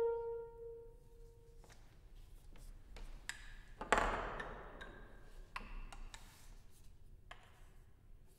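The last note of a wooden baroque transverse flute (traverso) fades away in the first second. Then come faint clicks and knocks as the flute's wooden joints are handled at an instrument stand, with a louder knock and rustle about four seconds in.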